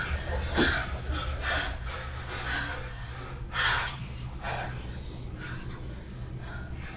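People breathing hard and gasping, out of breath after running, with a sharper gasp about three and a half seconds in, over a steady low hum.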